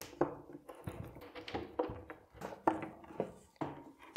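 Faint, irregular clicks and knocks of a screwdriver turning cam-lock furniture connectors and handling chipboard bookcase panels.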